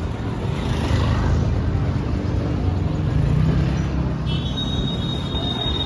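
City road traffic: a steady low rumble of cars and motorbikes. About four seconds in, a steady high-pitched tone joins it and holds.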